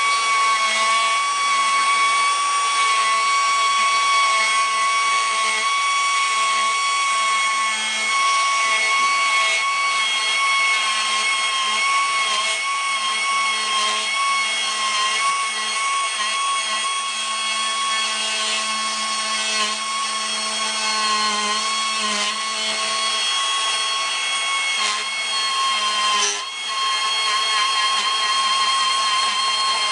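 Powered surgical bone saw running with a steady whine as it cuts through the scapula at the stalk of an osteochondroma. Its pitch wavers slightly under load and dips briefly near the end.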